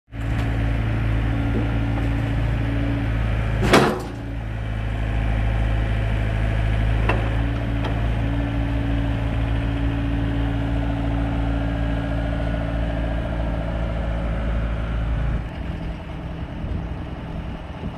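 A heavy machine's engine running steadily, with one loud knock about four seconds in and a lighter one about three seconds later; the engine drops off near the end.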